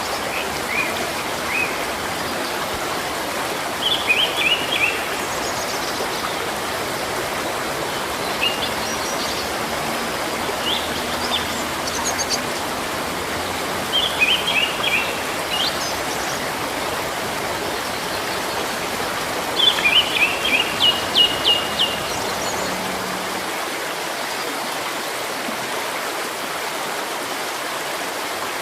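Steady rush of running stream water, with a songbird calling in short phrases of quick high chirps several times, the longest phrase about two-thirds of the way in; after that only the water continues.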